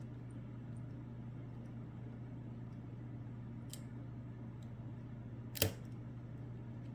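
A lock pick working the pins inside a Lockwood Twin sidebar lock: a few faint metallic clicks, with one sharper, louder click about five and a half seconds in, over a low steady hum.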